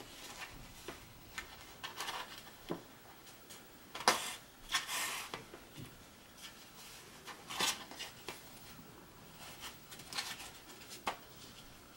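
Light rustles and taps of a paper plate being handled while yarn is pulled through its punched holes, scattered and irregular, the loudest about four and seven and a half seconds in.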